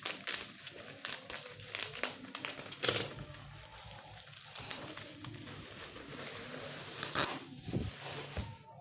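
Parcel packaging crinkling and rustling as it is handled and unwrapped, in irregular crackles, the loudest about three seconds in and again near the end.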